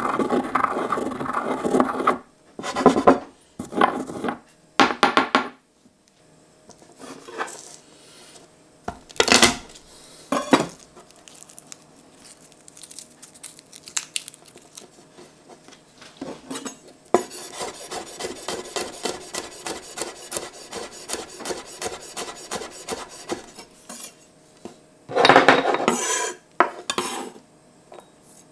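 Stone mortar and pestle grinding spices, then scattered soft crackles of a garlic clove being peeled. A long run of rapid, even knife chops on a wooden cutting board follows, mincing the garlic. Near the end comes a loud scraping of the knife blade on the board as the garlic is pushed into a small ceramic dish.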